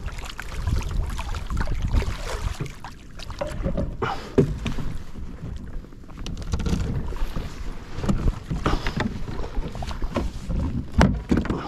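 Wind buffeting the microphone over water sloshing and lapping against a kayak's hull, with a sharp knock about four seconds in and another near the end.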